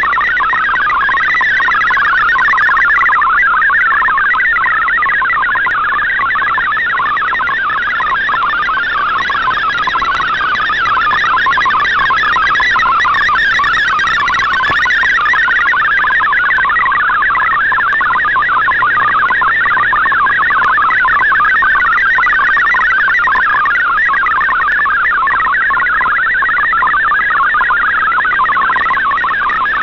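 Shortwave digital-mode data signal heard through a receiver: a steady, dense warble of rapidly hopping tones, the MFSK data stream of the RadioGram broadcast, over band hiss.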